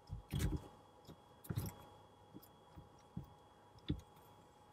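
Campervan side window being unlatched and pushed open on its stay: a few soft knocks and clicks from the latches and frame, the strongest just after the start, over a faint steady hum.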